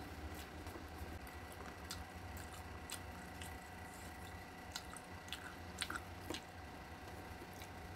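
Close-up eating sounds: wet chewing and mouth clicks, with small scattered clicks as fingers pick food off a stainless-steel tray. A steady hum runs underneath, and the loudest clicks come about six seconds in.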